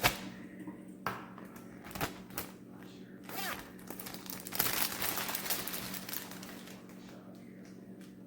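Handling noises: a few sharp knocks in the first couple of seconds, then about two seconds of dense rustling, over a steady low hum.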